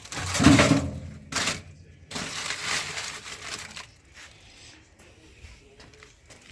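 A scraper scraping greasy gunk off the floor of an Oklahoma Joe's Highlander offset smoker's cooking chamber. It makes three rough strokes, the first the loudest and the last the longest, then quieter scratching.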